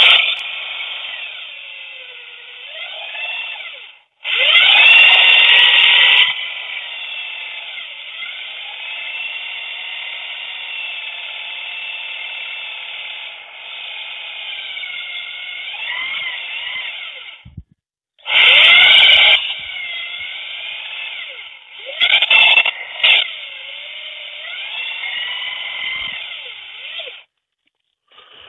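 Electric drill boring with a freshly sharpened 10 mm twist bit, the motor's pitch dipping and recovering as the bit bites. It stops briefly about two-thirds through, starts again, and cuts out near the end.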